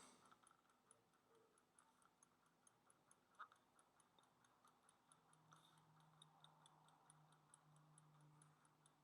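Near silence, with faint, regular ticking about three times a second and one soft click about three and a half seconds in.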